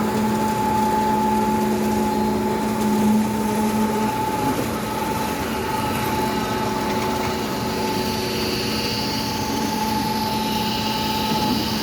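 Concrete pump truck running steadily, its engine noise carrying a constant high whine.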